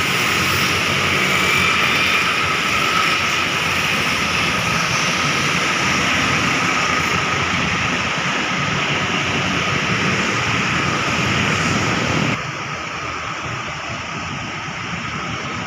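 Steady rushing noise of bus traffic, with engines and tyres on a rain-wet road. It drops to a lower level about twelve seconds in.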